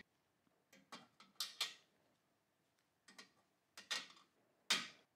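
Small steel pistol parts set down into a pan of WD-40 by hand, clinking against the enamel pan: about ten short clicks, mostly in pairs, at irregular intervals.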